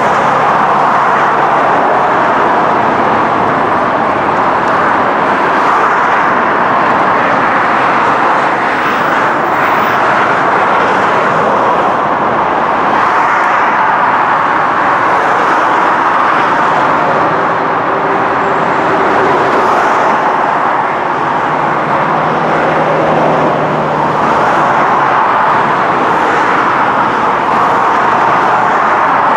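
Motorway traffic passing below: a steady wash of tyre and engine noise from cars, vans and lorries, swelling and easing every few seconds as vehicles pass, with a low engine hum standing out now and then.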